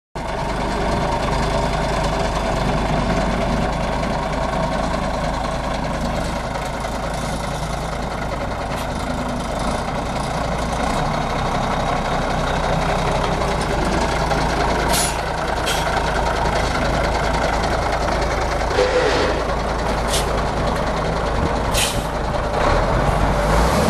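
Cummins C-Series 8.3L six-cylinder diesel in a 1994 Kenworth K300 truck running steadily at idle, with a few brief sharp sounds in the second half.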